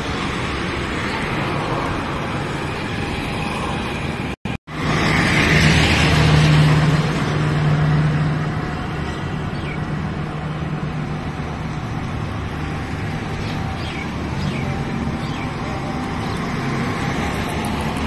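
Road traffic noise from passing vehicles. After a brief dropout about four seconds in, a vehicle engine hums louder and steadily for a few seconds, then eases back into the traffic.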